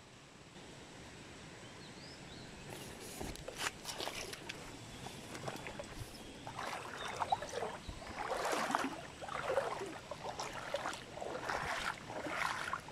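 Someone wading through a shallow stream, with irregular splashes and sloshing footsteps that get louder and busier about halfway through.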